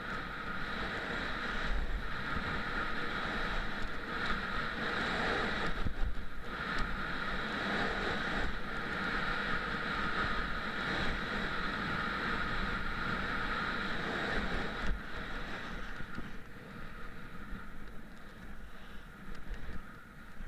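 Wind rushing over an action camera's microphone while skiing downhill, mixed with the skis running over the snow, easing off in the last few seconds.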